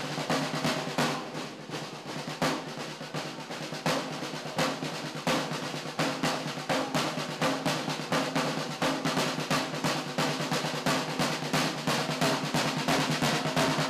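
A group of Sartiglia tamburini playing large field drums with wooden sticks, a fast, steady march beat of dense strokes and rolls, slightly lighter in the first couple of seconds.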